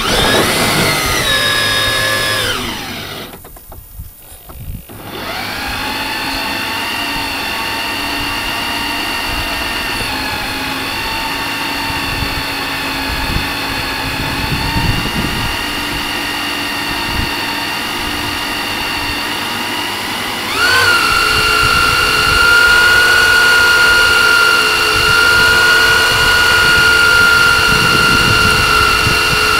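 Small motor of a model fireboat whining as it drives the boat. The pitch falls over the first couple of seconds and the motor almost cuts out around four seconds in, then it runs steadily and steps up to a higher, louder whine about twenty seconds in.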